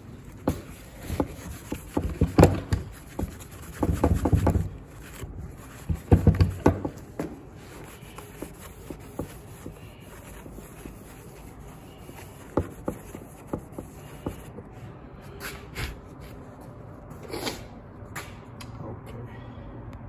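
Hand tools clattering in a toolbox as they are rummaged through, in several loud bursts, followed by quieter handling noise and a few single knocks.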